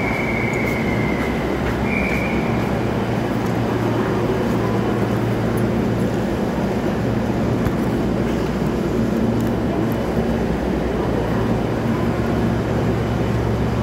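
A train standing at a station platform giving a steady low hum, with the bustle of passengers boarding around it. Two short high tones sound near the start.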